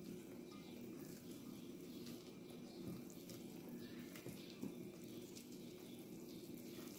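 Faint soft squishing and rubbing of hands kneading flour into a sticky yoghurt dough in a glass bowl, over a steady low hum.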